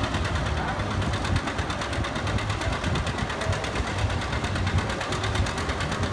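Farm tractor's diesel engine running hard at a pull, a loud, steady drone with a fast, even firing beat.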